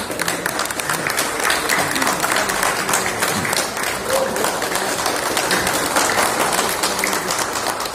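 Crowd applauding: many hands clapping steadily, with voices mixed in underneath.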